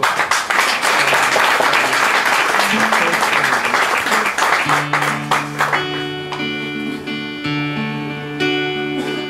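Audience applause for about four and a half seconds, fading as an acoustic guitar and violin start the song's instrumental intro with long held notes.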